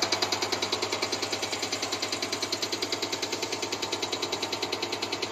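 Caterpillar HEUI diesel injector firing repeatedly on a test bench: a rapid, regular clicking over a steady hum, while the actuating oil pressure is raised toward 12 MPa.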